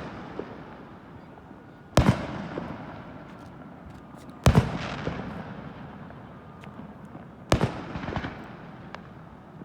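Fireworks going off: three loud bangs about two and a half to three seconds apart, each trailing off in a fading echo, with a few small pops between them.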